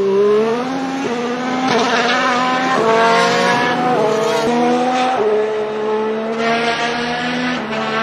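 Modern turbo-hybrid Formula 1 V6 accelerating through the gears, its note climbing and then dropping at each of several quick upshifts. Over it is the jet-like rush of the open wastegate that the cars use on qualifying laps.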